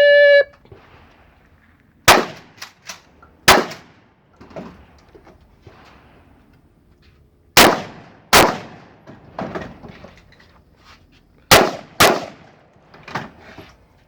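A short beep at the very start, then six loud gunshots at uneven intervals, with fainter sharp cracks and clangs between them.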